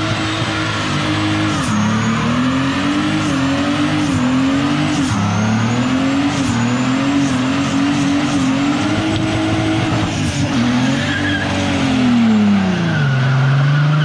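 Car doing a burnout: engine held at high revs with its pitch bouncing up and down while the tyres spin and hiss, then the revs fall away near the end.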